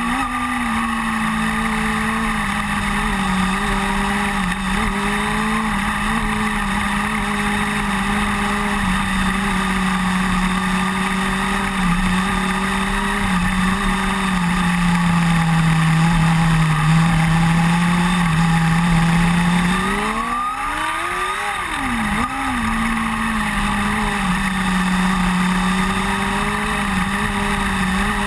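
Onboard engine of a small open-wheel dirt-track race car running at a steady, fairly even speed. About twenty seconds in it revs up sharply and drops back within a couple of seconds, then settles into the steady note again.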